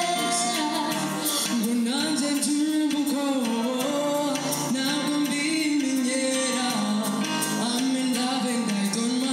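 A woman sings live into a microphone over amplified backing music, her melody sliding up and down in a low register.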